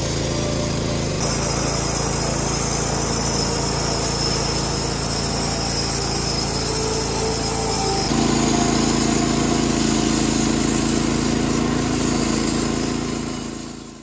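Range-road RR032B band sawmill cutting through a log: its 14 HP Kohler engine running steadily under load while the band blade saws, a little louder after about eight seconds, fading out near the end.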